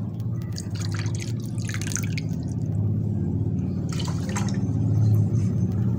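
Water poured from a plastic cup into a nonstick pan of sugar, splashing and trickling, with splashes about one, two and four seconds in. A steady low hum runs underneath.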